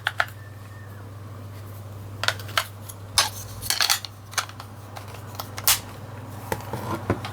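Irregular sharp plastic clicks and taps as batteries are put back into a TV remote control, over a steady low hum.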